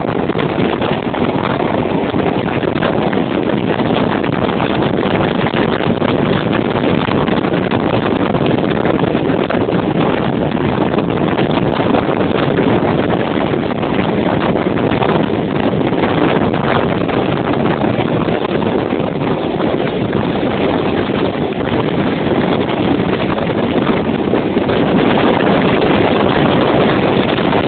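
Steady rush of wind and running noise from a steam-hauled passenger train at speed, double-headed by two GWR Castle-class locomotives, heard at an open carriage window with wind buffeting the microphone.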